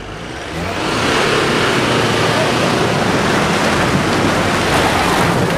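Jeep Wrangler driving hard through deep mud close by: engine running under load and tyres churning and throwing mud, a loud steady rush of noise that builds up about a second in.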